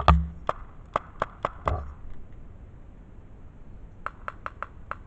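Paintball markers firing in quick runs of sharp pops: a run in the first two seconds and another starting about four seconds in, with a dull thump at the very start.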